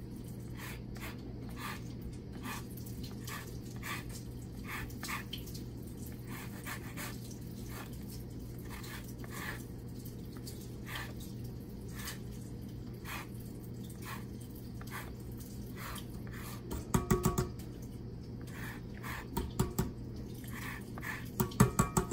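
Lemon rind rasped on a Microplane zester, scraping strokes about one a second. Dogs bark in short bursts twice, in the second half and near the end.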